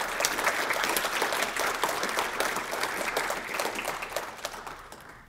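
Audience applauding, dense clapping that thins out and stops near the end.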